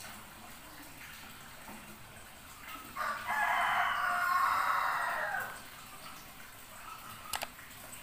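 One long animal call of about two and a half seconds, starting a little after three seconds in, with a short click near the end.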